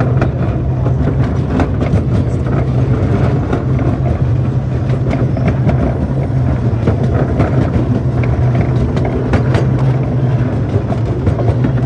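Ride-on miniature train running along its track, heard from a passenger car: a steady low rumble with frequent clicks and rattles of wheels and cars on the rails.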